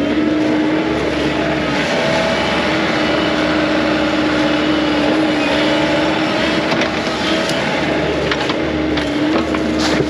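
Mini excavator's diesel engine running steadily at working speed, with a few sharp knocks over it.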